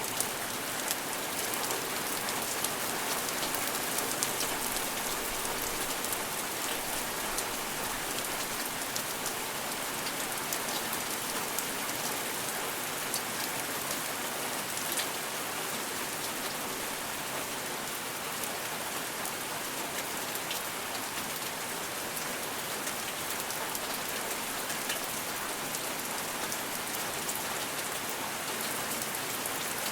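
Steady rain falling on a surface, an even hiss with many small drop ticks and no thunder.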